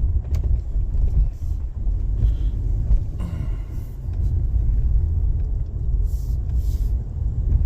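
A car driving, with a steady low rumble of engine and road noise. A short higher-pitched sound comes about three seconds in, and brief hisses come near the end.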